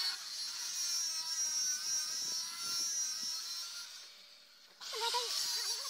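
Electric angle grinder with an abrasive disc grinding the edge of a steel rebar knife blade, a steady high whine that fades out about three and a half seconds in. Near the end, another, louder sound starts abruptly.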